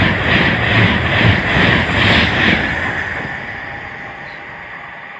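Avanti West Coast Class 390 Pendolino electric train rushing past at speed, its wheels giving a regular clatter about three times a second. The noise fades away over the second half as the train leaves.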